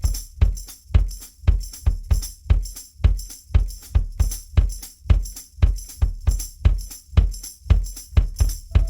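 Rock song intro on drums alone: a steady bass-drum beat about two times a second with a tambourine jingling on each beat.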